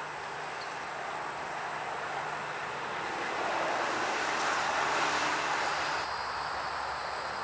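GE C40-9W and C40-8W diesel locomotives running as they approach at low speed: a steady low engine hum under a broad rushing noise that swells to its loudest about four to five seconds in, then eases back.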